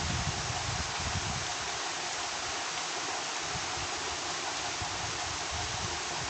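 Steady background hiss with irregular low rumbles and soft knocks underneath.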